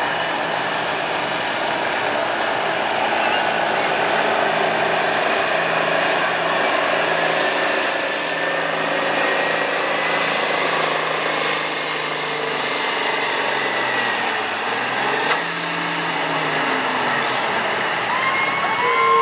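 Farmall Turbo tractor's turbocharged diesel engine running hard under load while dragging a pulling sled, with a thin high whine above the engine note. The engine note dips briefly about fourteen seconds in.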